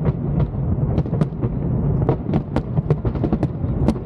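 Fireworks display in a dense barrage: a continuous low rumble of booming shells with many sharp bangs and crackles overlapping, several a second.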